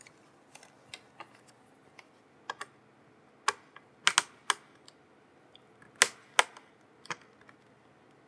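Snap latches of an MSI MS-16Y1 laptop's screen bezel clicking free as a flat pry tool works along the lid's edge. The clicks are irregular and sharp: a few light ones at first, then several loud ones between about three and a half and six and a half seconds in.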